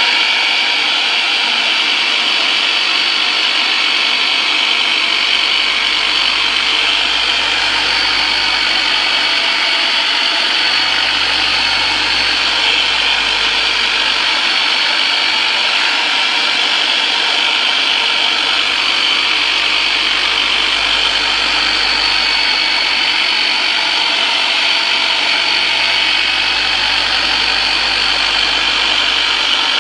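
Turbonator electric percussion massager running steadily against a patient's back: a loud, even motor buzz, its low hum dropping out briefly a couple of times.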